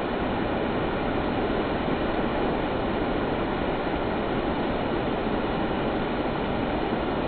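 Fast-flowing stream with a strong current, its water rushing in a steady, even roar.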